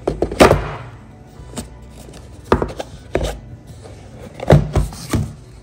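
A gift box being handled and opened: a run of uneven knocks and taps, loudest about half a second in and again about four and a half seconds in. Background music plays underneath.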